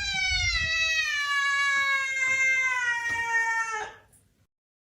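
A domestic cat giving one long, drawn-out meow that slowly falls in pitch, held for about four seconds before it cuts off suddenly.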